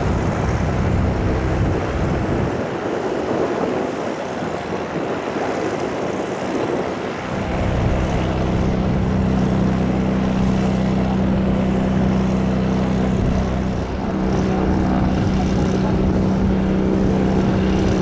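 Airbus Beluga XL's turbofan jet engines running at low taxi power: a loud, steady engine drone. About seven seconds in, a steady hum with several held tones comes in over the rumble and holds.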